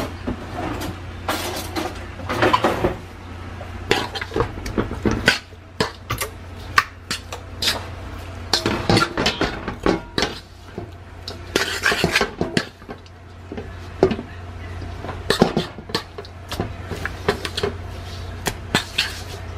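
Metal fork clinking and scraping against a stainless steel pan as raw seasoned pork chops are turned and mixed, in irregular clinks and knocks over a steady low hum.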